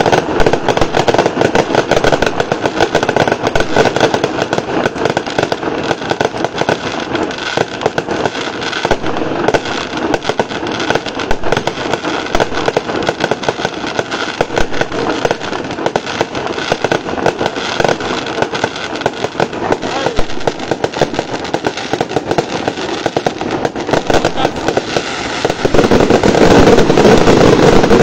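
Fireworks display: a dense, continuous run of rapid crackling and popping from ground fountains and bursting aerial shells, getting louder about two seconds before the end.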